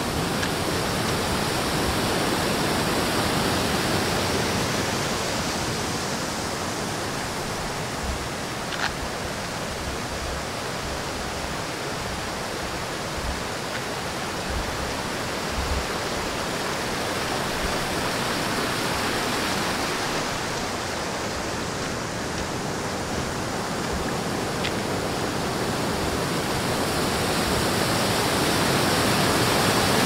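Water rushing over a small rocky waterfall and river cascade: a steady, even rush that grows louder toward the end.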